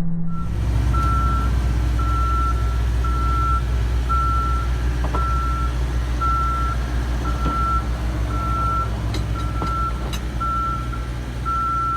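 Truck's reversing alarm beeping steadily about once a second, a single high tone, over the low steady sound of its engine running.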